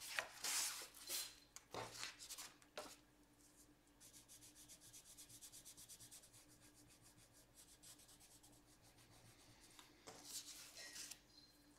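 Faint scratching of a Derwent water-soluble coloured pencil shading on paper. A few separate strokes come first, then several seconds of quick, even back-and-forth strokes, and a few more strokes near the end.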